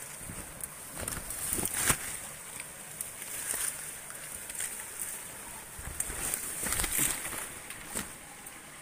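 Grass and weed stems rustling and scraping against a handheld camera as it is pushed through streamside vegetation, with irregular crackles and a few handling knocks.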